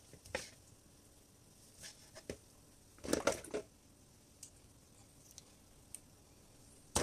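Wet handling noises of boiled cow tripe and cow leg being picked up and dropped into a plastic bowl: soft squishes with scattered light knocks, the busiest stretch about three seconds in.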